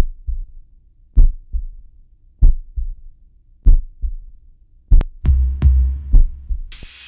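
Heartbeat sound effect: deep thumps in lub-dub pairs about every second and a quarter. About five seconds in, a music track's drum beat with heavy bass takes over, and a cymbal crash rings out near the end.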